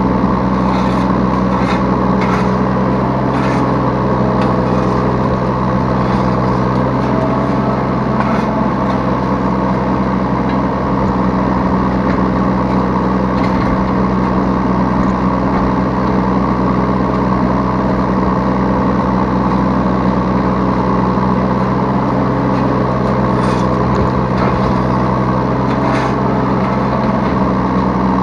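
Yanmar B3 Sigma 3-ton mini excavator's diesel engine running at a steady speed, heard from the operator's seat, with a few light knocks and clicks here and there.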